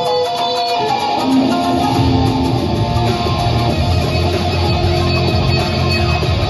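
Guitar improvising single held melodic notes over a trap phonk backing track with a heavy low bass, which drops out for about the first second and then returns.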